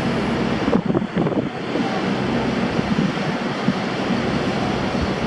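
Rough ocean surf breaking, with wind buffeting the microphone; the heavy surf is stirred up by an approaching hurricane.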